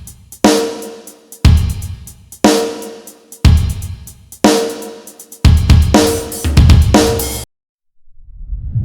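Slow drum-kit loop: a bass drum and a snare alternate about once a second, with quick hi-hat ticks between, and the loop cuts off sharply about three-quarters of the way in. Near the end a rising whoosh begins to swell.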